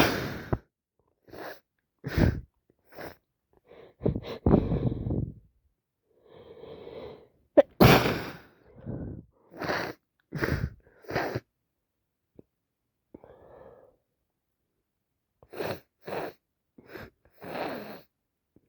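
A person with a heavy head cold sneezing again and again, with short sniffles and breaths in between. The loudest sneezes come right at the start and about eight seconds in.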